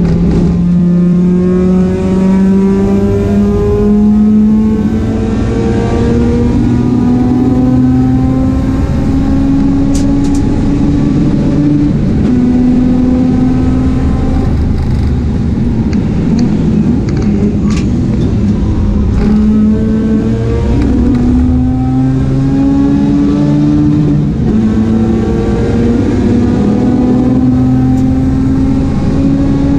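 Mazda RX-8 race car engine at racing speed, its pitch climbing in long ramps under throttle and dropping back at gear changes and lifts several times, with shorter steps in the second half.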